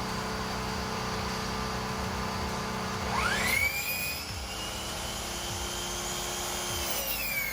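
A woodworking power tool's electric motor spinning up about three seconds in: a quickly rising whine that holds at a high pitch for about four seconds, then begins to wind down at the end.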